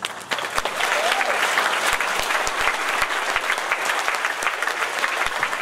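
Audience applauding: many hands clapping together, breaking out suddenly and keeping on steadily.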